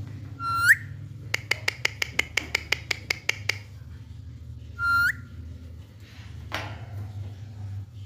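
Alexandrine parakeet giving two short whistled calls, each a held note that sweeps sharply upward at the end. Between them comes a quick run of about a dozen clicking chirps, about six a second. A brief rasp follows near the end.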